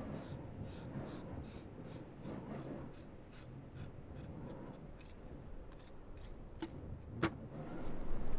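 A knife scraping along a fish on a plastic fish crate in quick, even rasping strokes, about three a second, the scraping of a fish being scaled. A single sharp knock sounds about seven seconds in.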